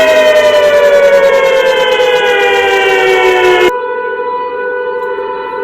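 Tornado siren sound from a siren app: several tones sound together and slowly wind down in pitch. About three and a half seconds in it cuts off suddenly and gives way to a quieter, steady siren tone.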